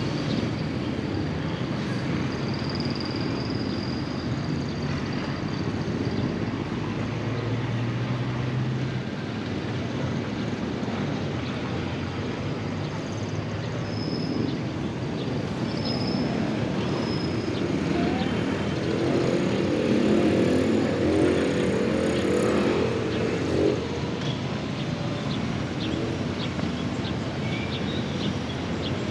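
Road traffic: vehicles running past steadily, with one louder pass a little past the middle.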